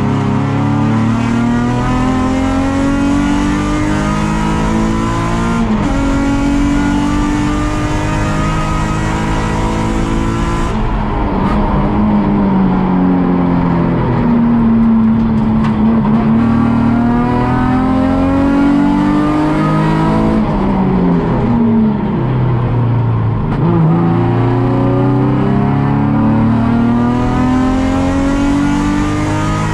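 Nissan 350Z race car's 3.5-litre V6 engine heard from onboard, under hard acceleration at full race pace. The engine note climbs through the revs and falls sharply at each gear change. Twice it drops away under braking for a corner, then pulls up through the revs again.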